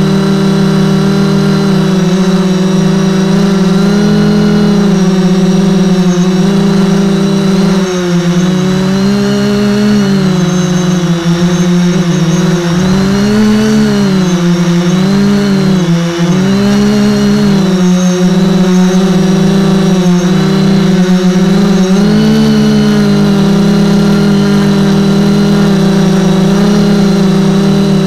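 Multicopter drone's electric motors and propellers buzzing steadily, heard close up from the onboard camera. Through the middle the tone wobbles and warbles as the rotors change speed against one another, then settles again.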